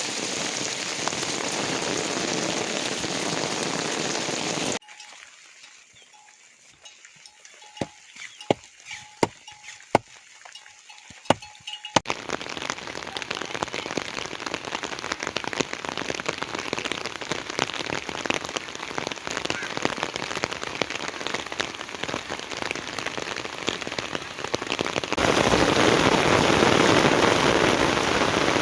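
Heavy rain falling with a steady hiss. About five seconds in it cuts to a much quieter stretch of scattered sharp drips or taps over a faint steady tone. Then heavy rain returns, growing louder near the end.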